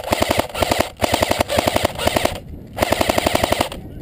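Airsoft electric rifle firing full-auto in a string of short, rapid bursts, about fifteen shots a second, with a brief pause about two and a half seconds in.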